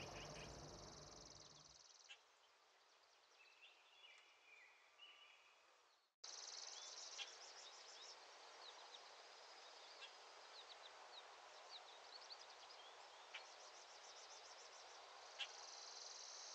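Faint outdoor ambience of insects trilling on and off at a high pitch, with scattered short bird chirps. The sound drops out briefly about six seconds in.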